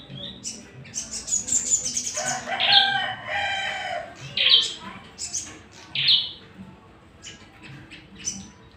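Caged songbirds giving sharp, high chirps, with a quick run of chirps about a second in and single loud chirps later. A rooster crows for about two seconds from about two seconds in.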